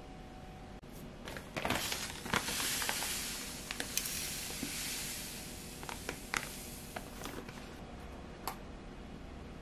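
Rice flour poured from a plastic bag into a stainless steel bowl: a soft hiss of running flour with plastic crinkling and small clicks, easing off after about five seconds. A few separate light clicks follow near the end as a spoon scoops from a small can.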